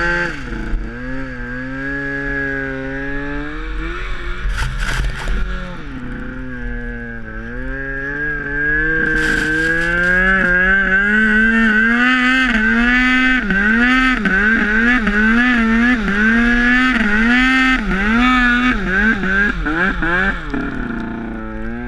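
Snowmobile engine running under throttle, its pitch falling and climbing as the rider works the throttle; about halfway in the revs start going up and down quickly many times over.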